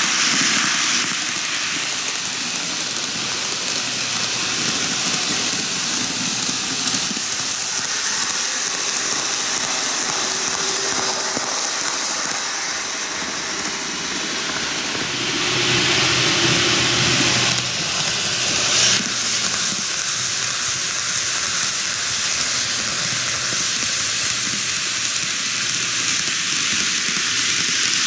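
N-gauge model electric trains running on TOMIX canted track: a steady rolling hiss of metal wheels on the rails with a faint motor hum. It swells for a few seconds around the middle as a train passes close.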